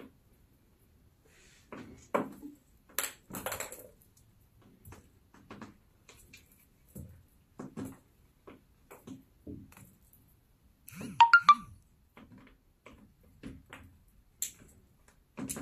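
Cats playing with a dangled feather toy around an office chair: scattered soft thumps, scuffs and rustles from paws and the chair, with a short burst of bright ringing pings about eleven seconds in.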